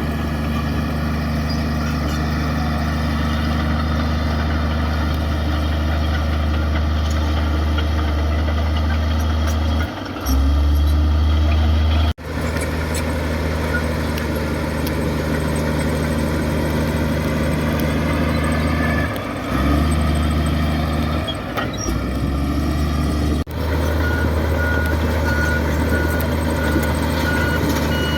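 Diesel engine of a heavy earthmoving machine running steadily under work, louder for a couple of seconds about ten seconds in. Near the end a reversing alarm beeps at an even rate.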